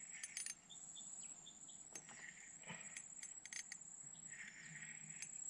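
Faint jungle riverside background with a steady high insect drone, and a few light clicks and taps scattered through it.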